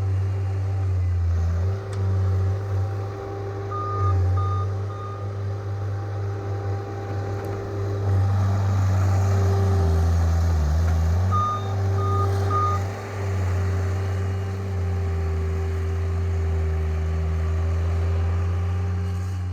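John Deere skid steer's diesel engine running steadily, with its reverse alarm giving three short beeps about four seconds in and three more about twelve seconds in.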